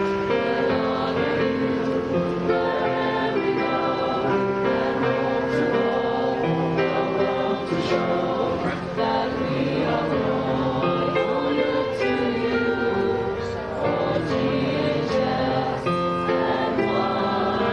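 Small mixed choir of young voices singing in harmony, with electronic keyboard accompaniment through a small amplifier, in long held notes.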